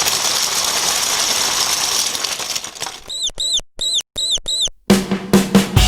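Electronic intro sound effects: a steady hissing swell, then five short chirps that rise and fall in pitch, with silent gaps between them. Near the end, a few quick stuttering hits lead into drum-led music.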